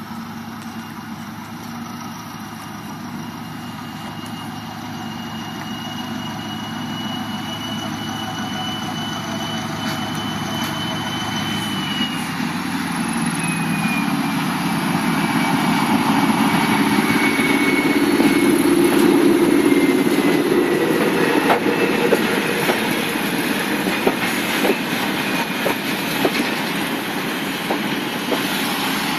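SM42 diesel-electric shunting locomotive passing close by with a train of tank wagons. The engine grows louder toward its peak about two-thirds through, and a high whine drops in pitch about halfway. In the later part, the tank wagons' wheels click over the rail joints.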